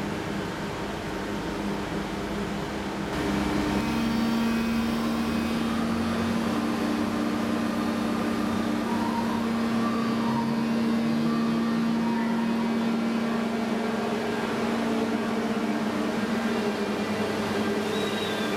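Electric train at the platform humming with several steady tones from its electrical equipment, getting louder about four seconds in.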